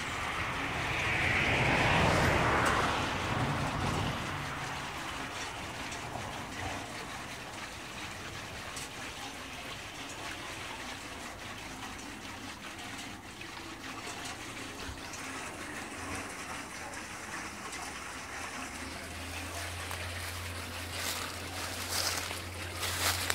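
Water pouring from a flume onto an overshot water wheel, a steady splashing trickle with a louder gush in the first few seconds. A low steady hum joins near the end, with a few knocks.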